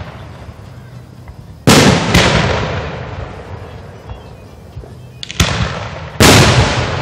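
Aerial firework shells bursting: a loud boom about two seconds in with a smaller crack just after it, then a sharp crack and another loud boom near the end, each dying away slowly.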